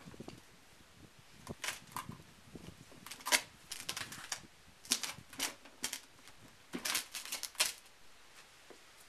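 Northern Pacific rattlesnake rattling its tail in a string of short bursts, each lasting a fraction of a second: the rattlesnake's defensive warning when it is disturbed.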